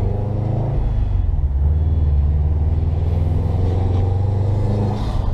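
2011 Subaru WRX's turbocharged flat-four engine running with a steady low drone, heard from inside the cabin.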